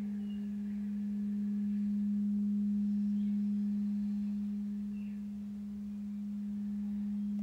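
Crystal singing bowl ringing on, one steady low hum that slowly swells and fades.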